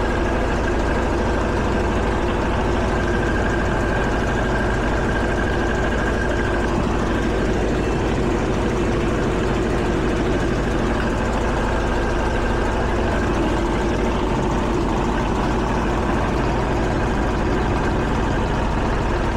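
Air conditioner's outdoor condensing unit running steadily, its compressor and fan motor humming with no change in level. The fan motor's shaft is loose, and the tech judges the motor no good.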